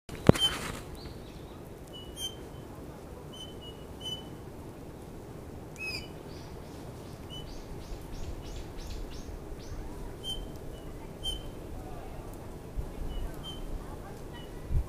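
Eurasian bullfinch giving soft, short piping whistles, repeated every second or so. There is a quick run of other bird notes in the middle, and a sharp knock at the start and a thump near the end.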